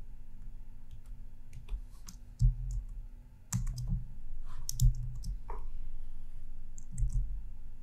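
Irregular, scattered clicks of computer input while drawing at the computer, with a few soft low thumps between them.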